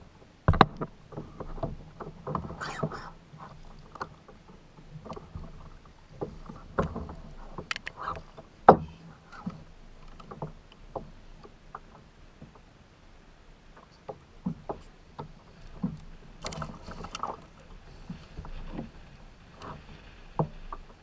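Irregular knocks and clatter on a kayak out on the water, with sharp knocks scattered throughout, the loudest about half a second in and again near nine seconds.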